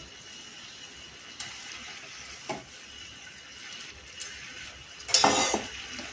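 Prawn curry gravy cooking in a metal kadai on a gas stove, a faint steady sizzle, with a few light clinks of metal and one loud metal clatter about five seconds in.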